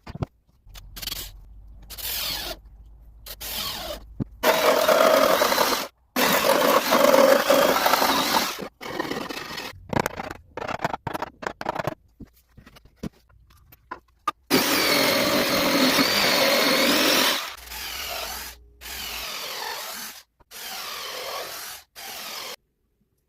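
A quick-cut run of woodworking shop sounds: short clips of power tools working wood, each cut off abruptly. The loudest stretches last one to three seconds each, one carrying a wavering high whine.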